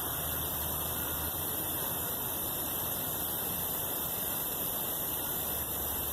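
A small solar refrigerator compressor runs steadily as it pumps biogas into a propane cylinder: a low hum under a steady hiss.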